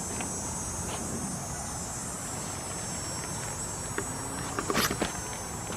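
A steady, high-pitched chorus of insects. A low, steady rumble sits underneath, and a few short rustles and clicks come near the end.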